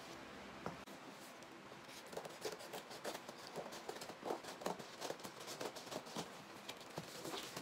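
Scissors cutting and scraping through the packing tape on a cardboard box: a run of small, irregular clicks and scratches, several a second, from about two seconds in.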